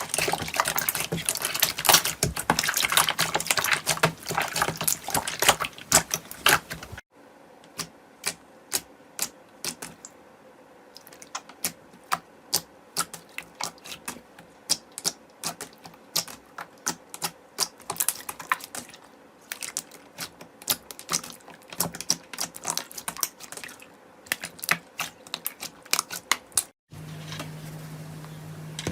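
Slime being squished and pressed, crackling with many sharp clicks and pops. Dense crackling changes abruptly about seven seconds in to sparser single clicks, with another sudden change near the end.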